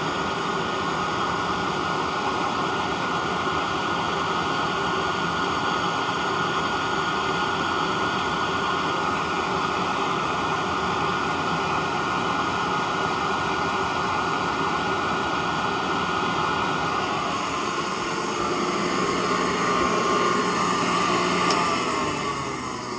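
Hoover Model 28 vacuum cleaner running steadily with its belt off, so the brushroll is not driven. Its tone shifts slightly past the middle, and near the end the motor is switched off and winds down with a falling whine.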